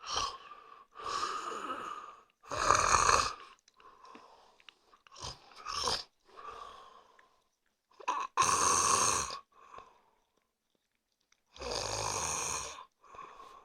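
A man snoring: three loud snores of about a second each, a few seconds apart, with fainter breathing noises between them.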